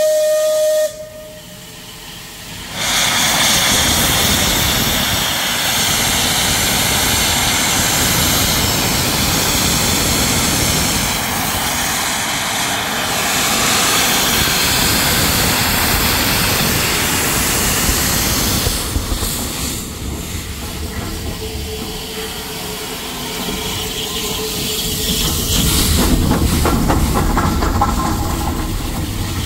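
Bulleid Battle of Britain class three-cylinder steam locomotive departing: its steam whistle ends about a second in, then a loud steady hiss of steam as it starts to pull away, easing off for a while and building again near the end.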